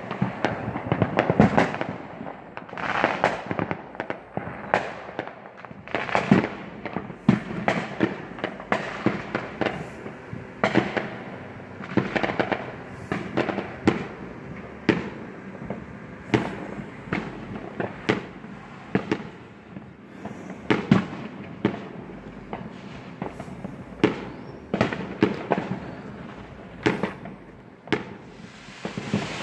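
Neighbourhood fireworks and firecrackers going off in a constant, irregular barrage of sharp bangs and pops, often one or two a second and overlapping, loud enough to sound like a war zone.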